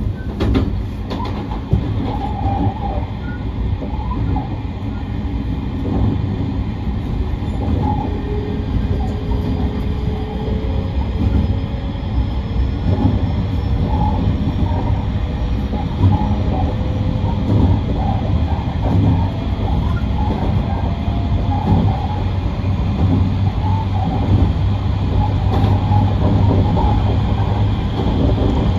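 Marine Liner electric train running at speed, heard from inside the carriage: a steady rumble of wheels on rail, with a faint whine slowly rising in pitch.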